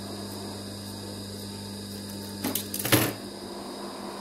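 Scissors snipping fabric, a quick run of sharp snips about two and a half to three seconds in, the last one loudest, over a steady low hum.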